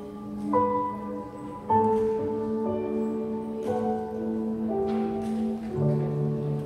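Yamaha Montage 8 synthesizer keyboard playing slow, sustained chords, a new chord every second or two; low bass notes join near the end.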